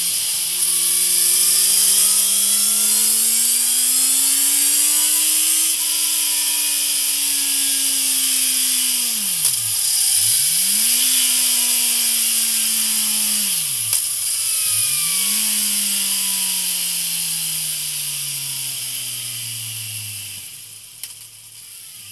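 Kawasaki Z900's inline-four engine running through a MIVV Suono slip-on exhaust, revving on a chassis dyno with a constant high hiss over it. Its pitch climbs for several seconds, then sags, dropping sharply and picking up again three times. Over the last few seconds it winds down steadily and fades out.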